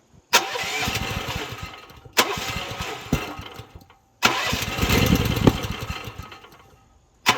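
Small gasoline engine of a Rippa Mule Trac mini excavator catching and running for a moment, then fading away, four times over. It won't stay running; the owner suspects low compression or a carburetor that cannot be tuned.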